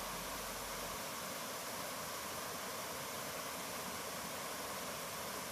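Water rushing down a series of cascades, running high after a weekend of rain: a steady, even rush.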